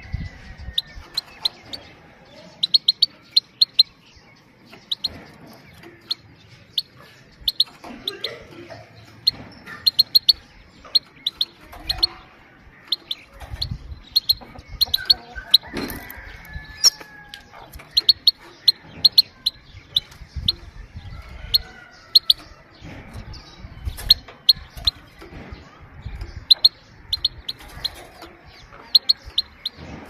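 Female goldfinch giving short, sharp 'pit-pit' calls in quick runs of two to four, repeated every second or so. This is the call keepers play to stir a male goldfinch into song.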